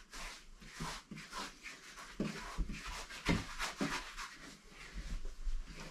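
Paintbrush dabbing and scrubbing stain onto wooden boards in irregular short strokes, with a few light knocks in between.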